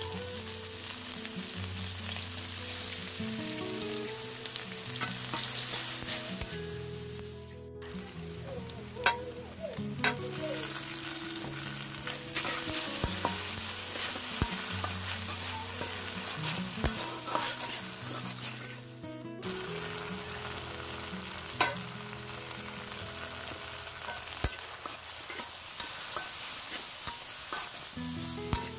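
Sliced onions sizzling and frying in hot oil in a large karai, stirred with a metal spatula that scrapes and knocks against the pan now and then.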